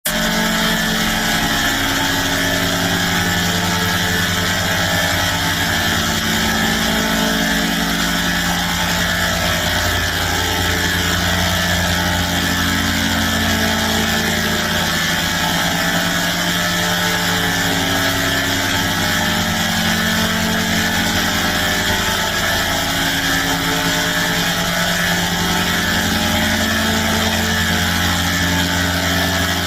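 A harsh, loud droning sound effect of stacked chords: low tones that change every few seconds over a constant heavy hiss, with no break.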